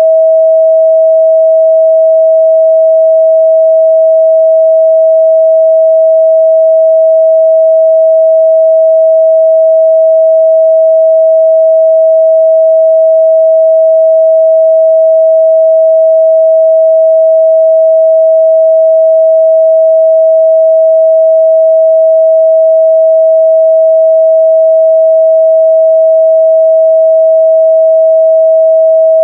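A continuous pure 644 Hz sine-wave test tone, one steady, unchanging pitch at a constant loud level.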